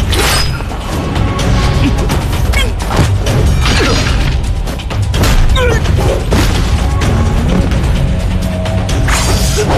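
Dramatic action score with a heavy low drum bed, layered with fight sound effects: several sudden thuds and crashes of bodies hitting the ground.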